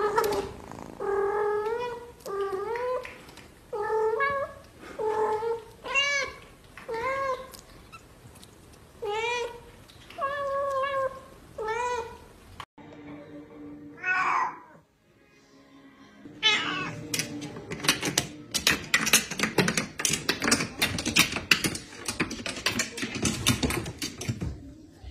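Kittens meowing, about a dozen short calls roughly one a second, each rising and then falling in pitch. They stop suddenly about halfway through. Later comes a dense run of sharp clicks and scrapes.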